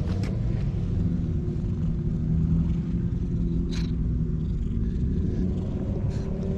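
Calico cat purring close to the microphone as it is petted, a steady low rumble.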